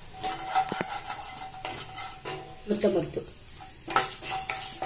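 Mustard seeds sizzling in hot coconut oil in a nonstick frying pan, with scattered sharp clicks and pops. A wooden spatula stirs and scrapes the pan; the loudest clicks come about four seconds in.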